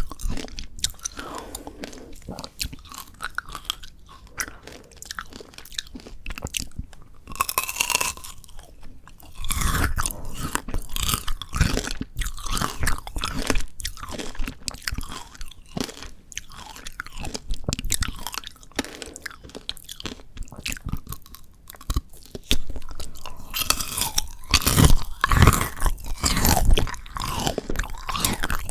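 Close-miked eating of frozen shine muscat grape tanghulu: the hard sugar candy shell cracks and crunches between the teeth, with chewing of the icy grapes; the crunching comes in louder, denser spells about a third of the way in and again near the end.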